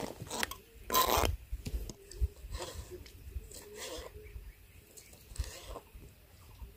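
Peeled malta oranges being pulled apart into juicy segments by hand over a plate, heard as a few short bursts of sound, the loudest about a second in.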